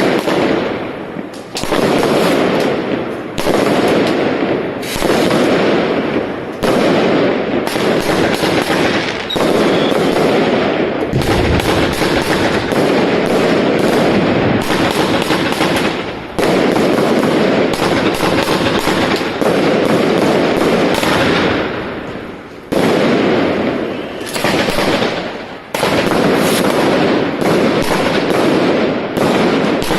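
A consumer firework battery (cake) firing: a dense, continuous barrage of shots and crackling bursts, with a fresh volley starting every second or two.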